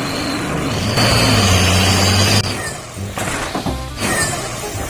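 Mitsubishi Fuso dump truck's diesel engine running under load as the loaded truck rocks over rough, muddy ground, swelling louder about a second in for over a second before easing off. Background music plays along.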